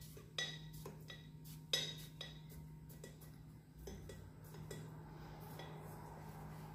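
A fork pricking holes in a baked cocoa sponge cake: a string of light, irregular clinks as the tines strike the dish beneath. They thin out after about four seconds, over a faint steady hum.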